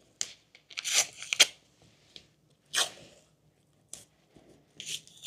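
Adhesive tape being pulled off the roll and torn into small pieces, heard as several short rips and crackles, the longest about a second in.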